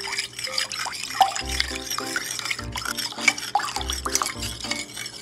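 A hand stirring carp roe in a bowl of salted water, the water swishing and splashing. Background music with a melody and deep bass notes plays over it.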